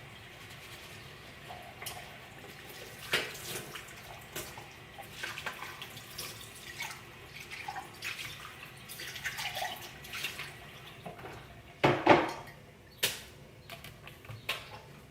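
Washing up at a kitchen sink: dishes and cutlery clinking against each other with water splashing, and one louder clunk about twelve seconds in.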